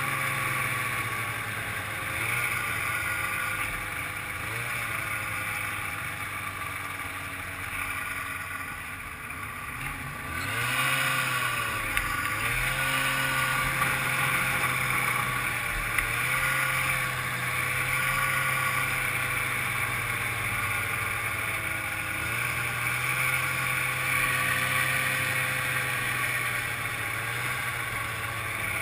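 Ski-Doo Grand Touring snowmobile's two-stroke engine running under way, its pitch rising and falling with the throttle. It eases off for a couple of seconds about a third of the way in, then revs back up.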